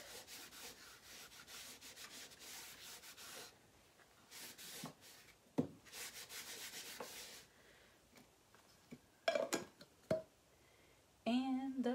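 Wax applicator rubbed back and forth in quick strokes over a chalk-paste print on a painted wooden sign, in two runs of rubbing. A few knocks come in between and just before the end, and humming starts at the very end.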